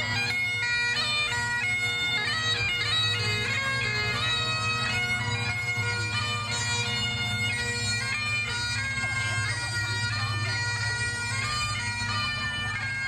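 Bagpipes playing a tune: steady low drones under a stepping chanter melody.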